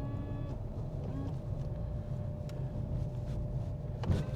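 Steady low engine and road rumble inside a moving car, with the windscreen washer pump giving a short whine at the start as the screen is washed and the wipers sweep.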